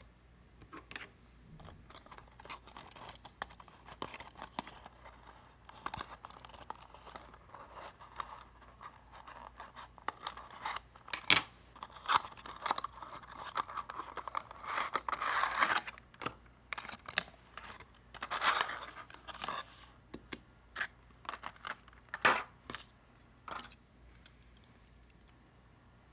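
Small cardboard model-car box being handled and opened by hand: scattered clicks and taps of the box and its flaps, with longer rustling scrapes as the contents slide out in the middle stretch.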